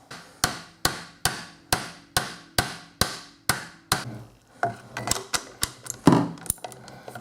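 Ratchet wrench on a long extension working a rifle stock's bolt: about nine sharp, evenly spaced clicks a little over two a second, then quicker, uneven clicks.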